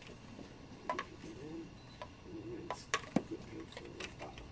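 Scattered small clicks and taps of a toy figure being handled and pushed onto the metal pegs of its display stand, a few sharp ones close together past the middle.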